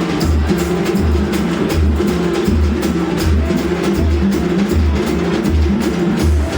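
Percussion ensemble playing a steady groove: deep bass drum strokes about every three-quarters of a second under a dense pattern of sharp, quick hits.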